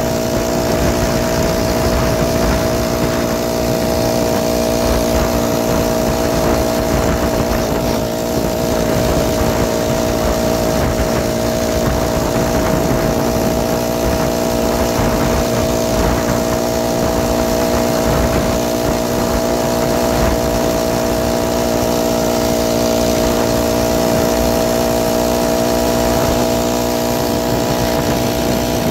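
Single-cylinder 49cc four-stroke engine of a BikeBerry motorized bicycle running at a steady cruising speed, with wind buffeting the microphone.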